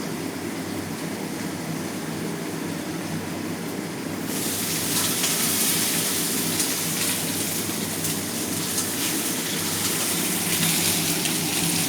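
Kitchen range hood fan running steadily. About four seconds in, a loud sizzle of steak frying in a hot pan sets in and keeps going.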